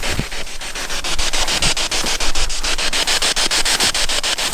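Tall weeds rustling as they brush against legs and clothing while people walk through them, with a few dull footfalls in the first couple of seconds.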